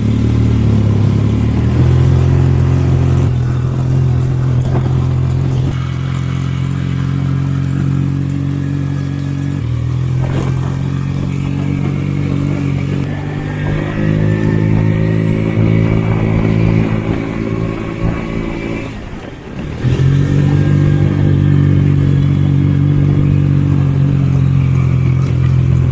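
Engine of a small ridden motorbike-type vehicle running under way, its pitch shifting in steps several times, dropping off briefly about 19 seconds in and then picking up again.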